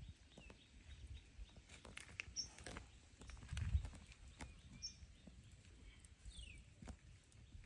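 Faint outdoor ambience: a low rumble that swells briefly about halfway through, scattered small clicks and rustles, and a few short high bird chirps, one of them falling in pitch.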